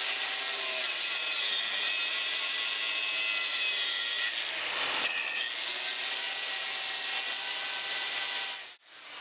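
Handheld angle grinder with a shrouded disc grinding steel anchor bolts down below the surface of a concrete floor. It runs steadily with a whine of the disc on metal, dips briefly a little past the middle, and cuts off near the end.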